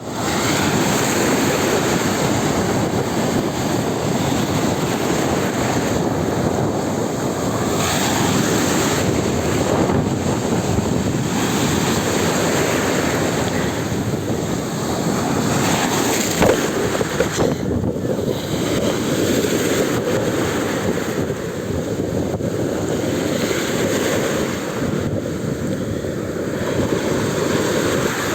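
Storm waves surging and breaking on a rough sea, a continuous rolling wash that swells and eases, with wind buffeting the microphone.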